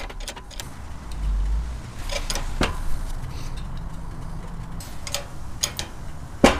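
Scattered metallic clicks and clinks from a hydraulic bottle-jack axle press being worked in short strokes, with a brief low rumble about a second in.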